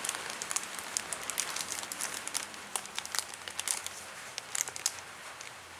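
Plastic model kit parts and their bag being handled: light crinkling with scattered small clicks over a steady hiss.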